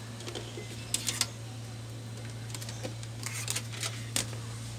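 Light clicks and short rattles of bench power-supply test leads and clips being handled, a cluster about a second in and more between about two and a half and four seconds in, over a steady low hum.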